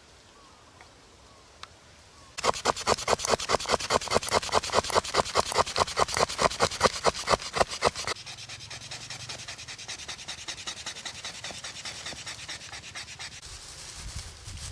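Rhythmic scraping strokes, about three to four a second. They are loud for about six seconds, then softer and steadier until near the end.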